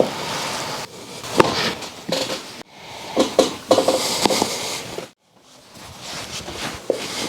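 Chiropractic adjustment: sharp cracks and knocks, the loudest at the start and about a second and a half in, amid rustling of the patient's body and clothing on the treatment table. The sound breaks off abruptly twice.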